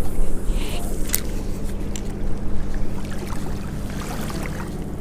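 A motor's steady low hum, with a few sharp clicks about a second in.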